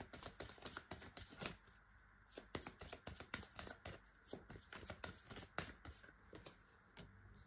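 A tarot deck being shuffled by hand: a quick, irregular run of soft card flicks that stops near the end.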